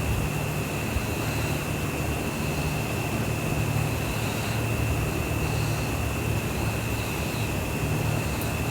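A steady low hum under an even hiss, with a thin high whine held throughout.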